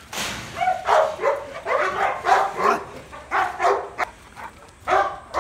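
A dog barking in a quick series of short, fairly high-pitched barks, about nine in all.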